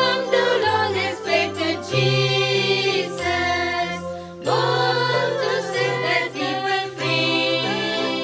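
Choir singing a Christmas song with instrumental accompaniment, in phrases over held bass notes that change about every second or two.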